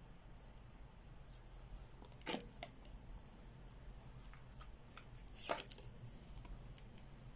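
Tarot cards being handled: a few short flicks and slaps of cards, the two loudest about two and a half and five and a half seconds in.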